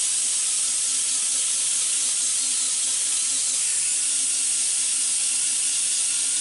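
Small rotary sanding tool with a pad running steadily against a transmission valve body plate, sanding off old gasket material: a steady high hiss with a faint low whine under it.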